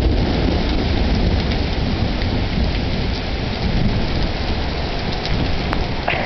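Heavy rain pouring steadily in a thunderstorm, with a continuous low rumble underneath.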